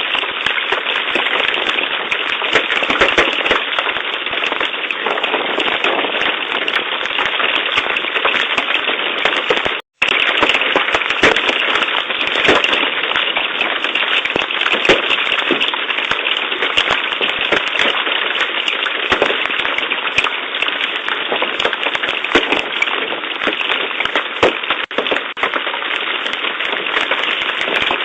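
Very large hailstones, about three inches across, pelting down in a dense, continuous clatter, with many sharp, loud single impacts standing out. The sound cuts out for a moment about ten seconds in.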